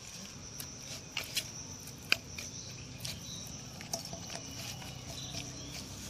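Steady high-pitched insect drone, like crickets, with scattered sharp clicks and taps, the loudest about two seconds in, as marinated tilapia pieces are turned by hand in a steel bowl.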